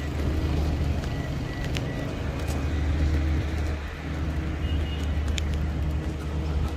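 Steady low rumble of a car on the move, engine and road noise, with a few faint clicks.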